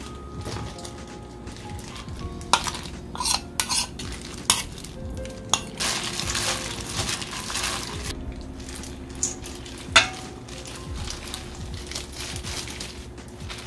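Whelk meat tipped into a stainless steel mixing bowl, with several clinks and knocks against the metal, then a gloved hand mixing the whelks into chili seasoning paste with a wet squishing for a couple of seconds. One sharp knock on the bowl comes about ten seconds in, as vegetables are slid in from a plate.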